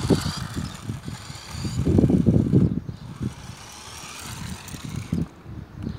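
A battery-powered remote-control toy car whirs as it drives across a hard sports-court surface. Under it runs a low, uneven rumble, loudest about two seconds in.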